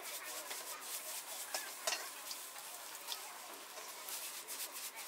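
Chow mein noodles sizzling in a hot wok as they are tossed and stirred, with a steady frying hiss and scattered sharp clacks from the wok and utensil, the loudest about two seconds in.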